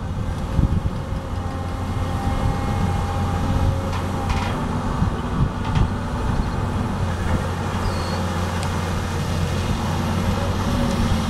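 Caterpillar 325 excavator on Wilco amphibious pontoon tracks, its diesel engine running steadily as it digs and swings through flood water, with two brief knocks about four and six seconds in.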